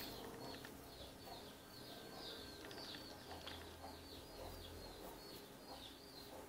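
A bird chirping faintly in the background: a run of short, high, falling chirps, about two or three a second, over quiet room tone.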